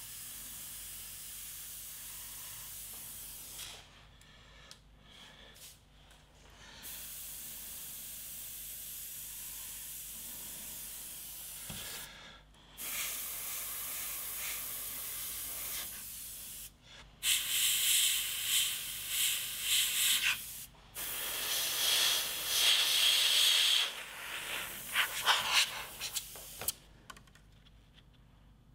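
Gravity-feed airbrush hissing as compressed air and paint spray from its nozzle, switched on and off in stretches of several seconds with short breaks. In the second half the spraying is louder and comes in uneven short pulses, then stops shortly before the end.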